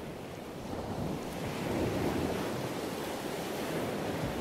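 Ocean waves washing, a steady rushing that swells and eases once, about two seconds in.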